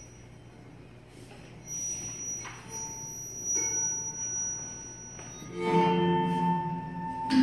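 Slow, sparse improvised music of held ringing tones. A high tone and then a steady middle tone come in, a fuller chord with low notes swells in near the end, and a new low note is struck right at the end.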